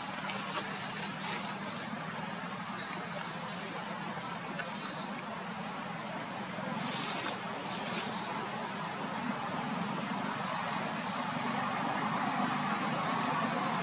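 A bird chirping repeatedly, short high notes about once or twice a second, over a steady low hum.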